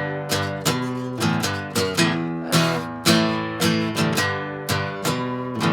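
Acoustic guitar strumming chords in a steady rhythm during an instrumental gap in a song, with no singing.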